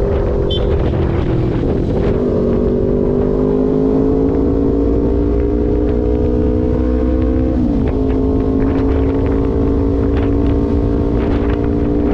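Kawasaki Ninja 250's parallel-twin engine running through an R9 GP SS aftermarket exhaust, with a steady, loud note. The pitch creeps slowly upward for about seven seconds, wobbles briefly, then holds steady.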